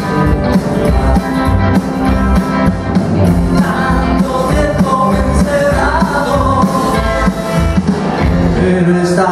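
Live rock and roll band playing loudly, with an electric guitar and a plucked upright double bass over a steady beat.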